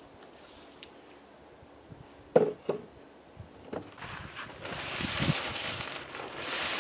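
A couple of sharp knocks a little over two seconds in, then from about four seconds on the steady rustle of a large camping tarp being thrown over a rope ridgeline and spread out by hand.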